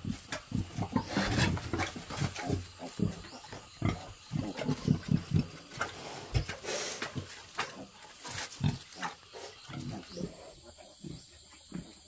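A litter of piglets grunting, many short grunts overlapping in quick, irregular succession, thinning out over the last couple of seconds.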